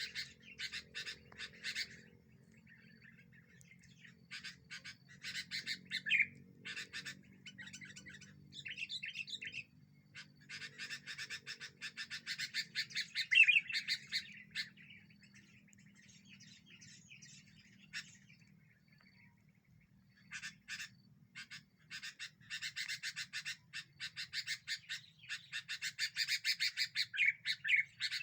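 Sooty-headed bulbuls (kutilang) calling in bouts of rapid, chattering chirps, with quieter gaps between bouts.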